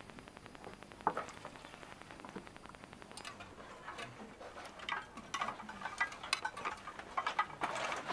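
Scattered clicks and clatter of dishes and utensils being handled, with a fast, even ticking through the first three seconds or so.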